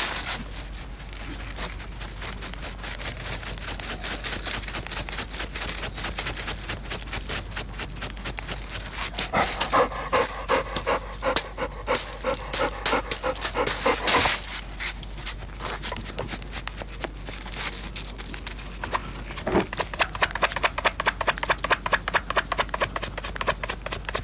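A dog scratching its own skin and fur, claws raking in fast, rhythmic strokes that come in bouts, with panting.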